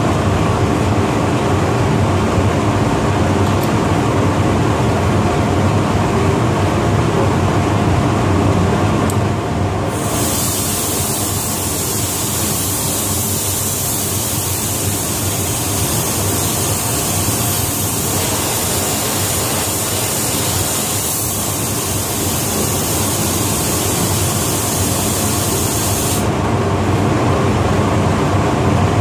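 Paint booth ventilation running steadily with a low hum. About ten seconds in, an automotive HVLP spray gun's high air hiss starts abruptly as clearcoat is sprayed, and it cuts off near the end.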